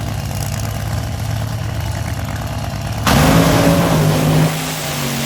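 Funny car engine running steadily at idle, then a sudden loud burst of throttle about three seconds in that rises in pitch and eases back after a second or so.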